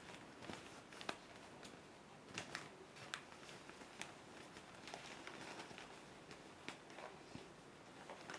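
Faint rustling and light crackling of a cotton head kerchief being folded and pressed into shape by hand, with scattered small clicks.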